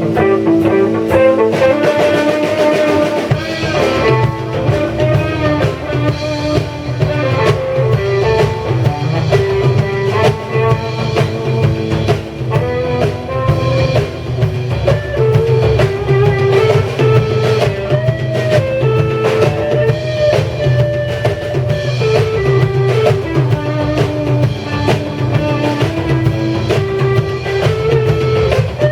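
Live rock band playing: drum kit keeping a steady beat under electric guitar and bass guitar lines.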